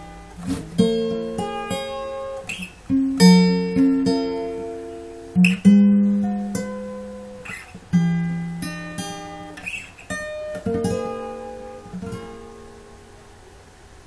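Acoustic guitar playing the closing chords of a song, strummed chords and picked notes ringing out and decaying. It dies away about twelve seconds in.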